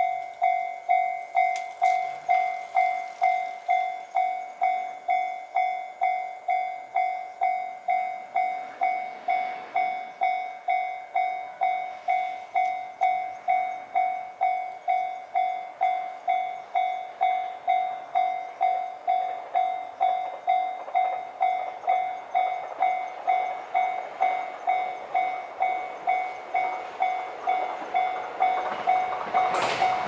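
Japanese railroad-crossing warning bell ringing steadily, just under two dings a second, each ding a single ringing tone that fades before the next: the crossing signalling an approaching train. Near the end the noise of the arriving train swells up under the bell.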